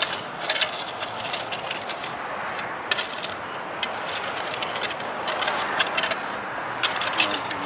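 Steel shovel blade scraping and chopping into sandy, gritty soil, in irregular bursts of scrapes every second or so, with one sharp clink about three seconds in.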